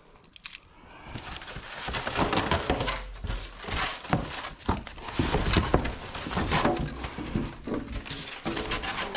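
Packaging being handled and pulled away from a large steel roll cabinet: continual rustling with frequent knocks, starting about a second in.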